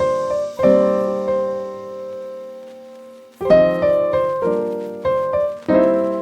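Background music: slow piano chords, each struck and left to ring out, with a lull of about two seconds before the next group of chords.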